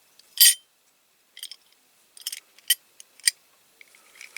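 Small die-cast metal parts clicking and clinking as a base plate is fitted onto a toy car's body: one louder clink about half a second in, then several lighter clicks.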